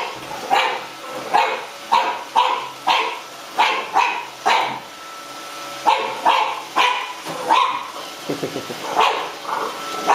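French bulldog puppy barking repeatedly in short, sharp barks, about one or two a second, with a brief pause midway, at a Roomba robot vacuum that it dislikes.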